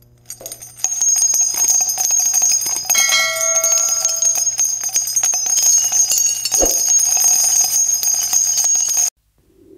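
Channel intro jingle made of bright, jingling bells and chimes, starting about a second in and cutting off suddenly near the end.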